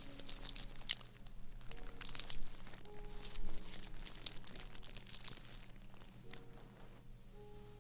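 Close-up ASMR crinkling and crackling of a handled material, tapering off near the end, over soft sustained background-music notes.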